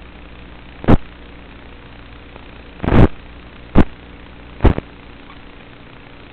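Steady motor hum carried on the FPV video link's audio, broken by four sudden loud pops about a second apart.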